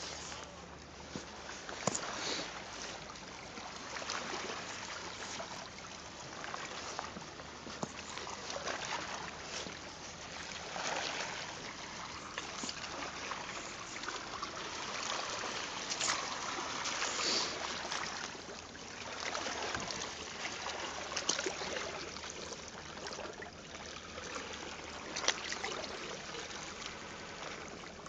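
Shallow water washing and trickling among rocks in slow swells, with a few sharp splashes.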